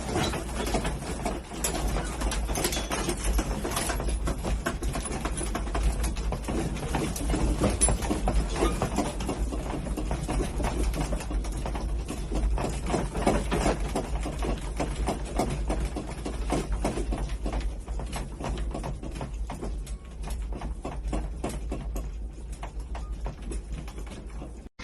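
Loose objects in a room rattling and clattering non-stop as the building shakes in a strong earthquake, over a steady low rumble.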